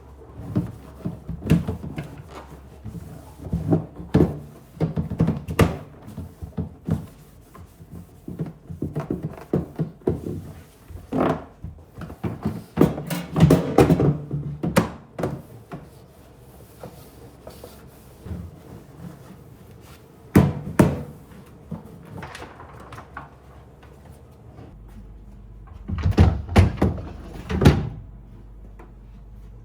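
A run of irregular knocks and thuds of household objects being handled and set down, clustered most heavily a little before the middle and again near the end.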